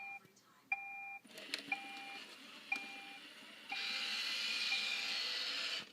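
Roomba 650 robot vacuum starting a cleaning cycle: two beeps, then short beeps about once a second, and from nearly four seconds in the steady whir of its vacuum motor and brushes running.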